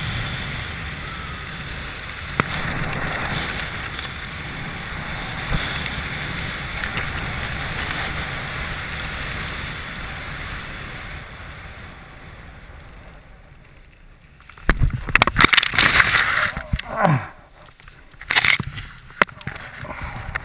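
Wind rushing over the camera microphone during a paraglider's final descent, fading as the glider slows. About fifteen seconds in, loud knocks and rustling break in as the pilot touches down in tall dry grass, with more rustling near the end.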